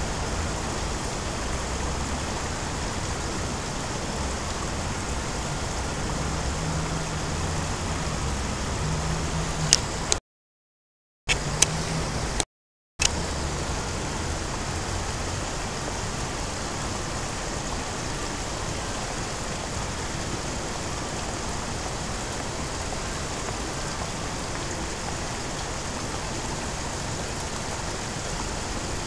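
Steady rushing outdoor background noise, with a low uneven hum through the first half. The sound cuts out completely twice, with clicks, about ten and twelve seconds in.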